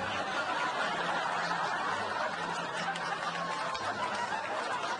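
Sitcom studio audience laughing at a punchline, a steady wash of many people's laughter that eases off slightly near the end.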